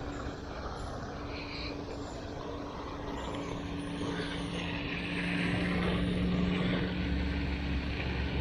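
A distant engine's steady drone, with a deeper hum coming in about halfway through and growing louder.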